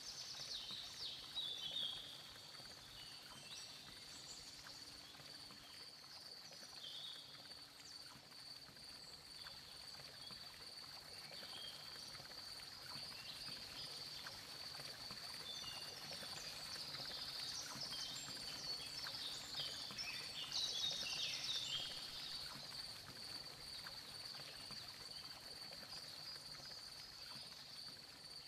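Night ambience of crickets: a steady, high chirring chorus. Clusters of faster, higher chirps come in about a second in and again around two-thirds of the way through.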